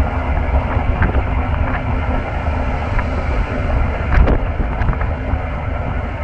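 Fishing trawler's engine running steadily, with wind buffeting the microphone. A few light knocks, the loudest about four seconds in.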